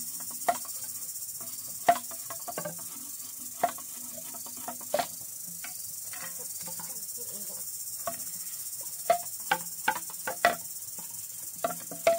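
Irregular sharp knocks of a machete blade on green bamboo poles, about a dozen spread unevenly, each with a short hollow ring. A steady high chirring of insects runs underneath.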